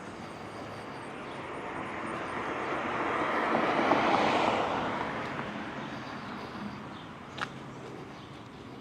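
A car passing by: its tyre and engine noise swells to a peak about four seconds in, then fades away. A short sharp click sounds near the end.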